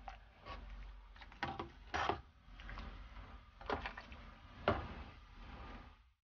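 Steel ladle stirring rice congee in a rice cooker's metal inner pot, scraping along the pot with several louder knocks against its side. The sound stops abruptly near the end.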